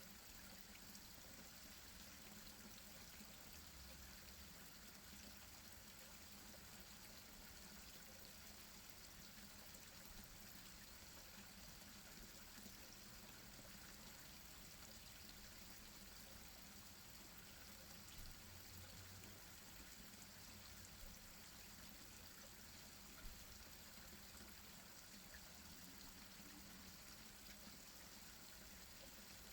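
Small garden-pond waterfall running steadily, heard faintly, with a few brief louder moments in the second half.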